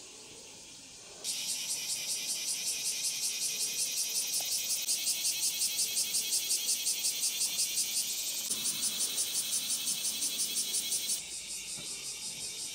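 Cicadas buzzing in a loud, high-pitched chorus that pulses rapidly and evenly, coming in sharply about a second in and dropping in level near the end.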